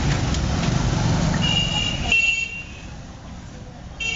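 Street traffic with a vehicle engine running, then a horn honking for about a second; the rumble drops away suddenly and a horn sounds again near the end.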